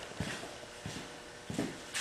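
Three soft knocks, evenly spaced about two-thirds of a second apart.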